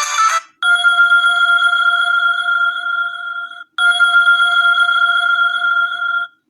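Preset ringtone on a BQ-5702 Spring smartphone: one steady electronic tone held about three seconds, a short break, then the same tone again. A different, busier ringtone cuts off about half a second in.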